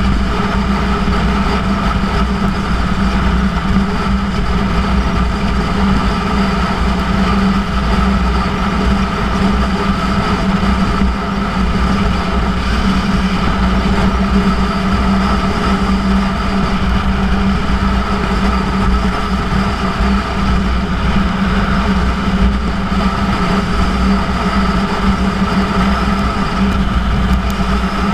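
Yamaha YZF-R1 inline-four engine with a Yoshimura titanium exhaust, running at a steady cruising speed with no revving up or down, mixed with wind rush over the bike-mounted camera.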